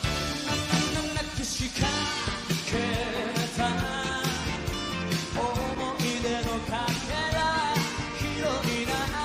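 Live 1980s Japanese city pop band performance: a male lead singer singing over a full band with a steady beat.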